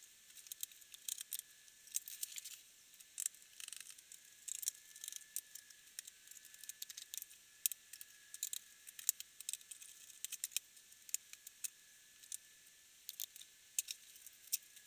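Irregular light clicks and taps of a small screwdriver and plastic parts on a laptop's underside, as the bottom-cover screws are undone and the plastic access panels lifted off.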